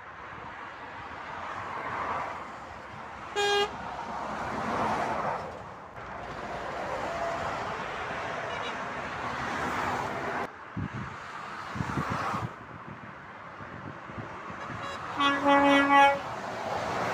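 Motorway traffic passing below, with tyre and engine noise swelling and fading as each vehicle goes by. There is a short horn toot about three and a half seconds in. Near the end comes the loudest sound, a longer blast of a lorry's horn as a tanker lorry approaches.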